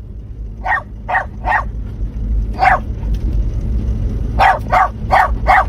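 A dog barking in short sharp barks: three quick barks about a second in, a single bark near the middle, then four more in quick succession near the end, over a steady low rumble.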